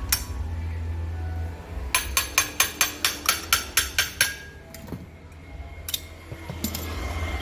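A hammer striking metal in a quick run of about a dozen ringing taps, roughly five a second, with a few single knocks before and after.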